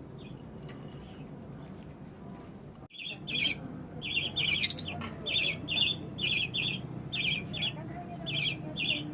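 Baby budgerigars chirping in short, rapid, high-pitched bursts, about one or two bursts a second, starting about three seconds in.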